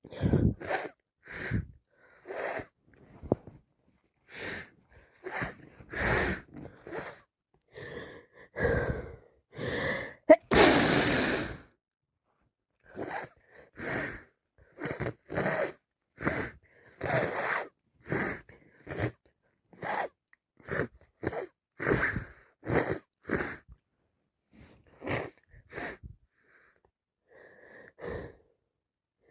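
A person with a head cold taking a long run of short, gasping build-up breaths and sniffs, about one a second. About ten seconds in comes one loud sneeze.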